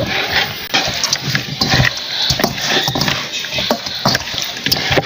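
Wet squelching and slapping of masala-coated carp steaks being mixed by hand in a stainless steel bowl, with many small sticky clicks as the marinade, thinned with a little water, is worked into the fish.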